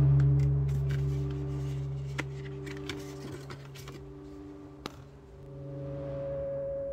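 Ambient background music of held, droning tones that swell and then fade. Light rustling and a few sharp clicks come from a hardback book and its cardboard slipcase being handled.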